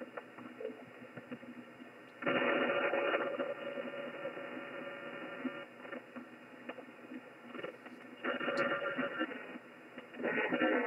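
Shortwave receiver audio on the 15 m amateur band in upper sideband: a steady hiss of band noise broken by three short buzzing bursts, the first and loudest about two seconds in, the others near the end. The uploader suspects the buzz may be electrical interference.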